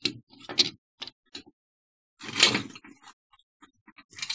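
Small objects clicking and clattering as they are handled and set down on a hard surface: a plastic toy fingerboard and coins. There are a few light knocks, then a louder scraping rustle about halfway through, and more small clicks near the end.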